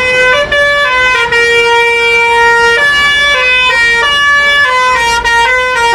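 Basuri telolet bus horn playing a tune: a string of loud held notes stepping up and down in pitch, a new note every half second to a second.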